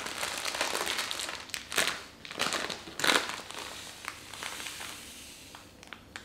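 Crinkling of a plastic packet of brown sugar being handled and squeezed open, loudest about two and three seconds in. A softer hiss follows as the sugar is poured into a wooden bowl.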